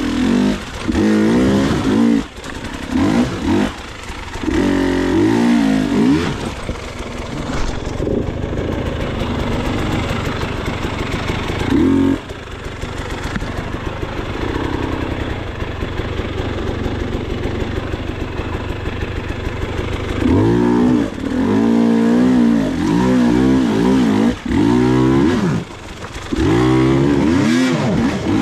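Dirt bike engine revving up and down in short bursts as the throttle is blipped and rolled off. It settles into a steadier, quieter run in the middle, then revs hard again near the end. Scattered knocks and clatter are heard throughout.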